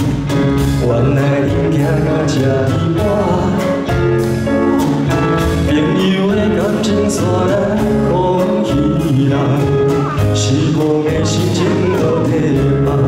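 Live band music of a Taiwanese Hokkien pop ballad: a melody carried over a full, steady accompaniment.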